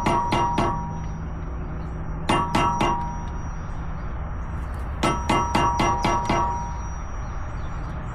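Hammer tapping a flathead screwdriver to dimple (stake) a car's front axle nut, metal on metal with a ringing clang. The strikes come in three quick runs: a few at the start, about four some two seconds in, and seven or so from about five seconds in.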